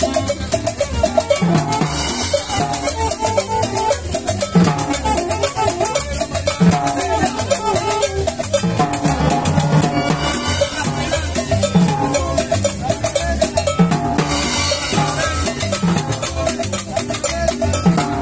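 Live cumbia band playing: saxophones carry the melody over a drum kit, conga and upright bass keeping a steady dance beat.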